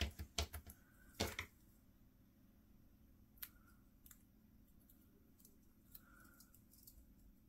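A quick run of small sharp clicks and taps in the first second and a half, then a few isolated faint ticks, from paper-crafting tools and pieces being handled on a desk.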